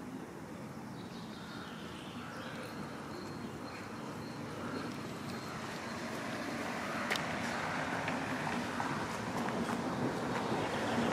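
Rumble of an approaching vehicle, growing steadily louder, with one faint click about seven seconds in.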